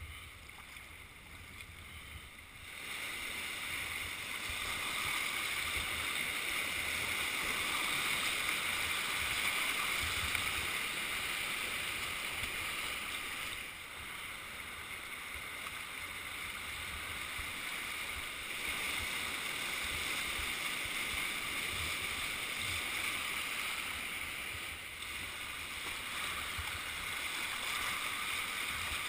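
Rushing water of a shallow, rocky river rapid heard from a kayak through a helmet-mounted GoPro. It is quieter for the first few seconds on flat water, then louder and steady as the boat runs into the riffles.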